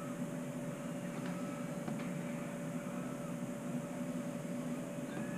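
Heat gun blowing steadily with a constant motor hum and hiss while it shrinks heat-shrink tubing over spliced wires, with two faint clicks about one and two seconds in.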